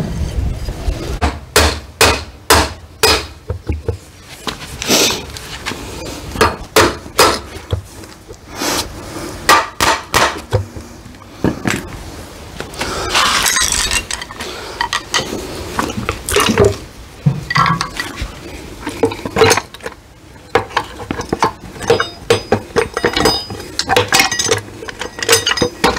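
Irregular metallic clinks and knocks of hand tools and loose parts against a Case 580SK backhoe's transaxle housing as it is taken apart, some strikes ringing briefly.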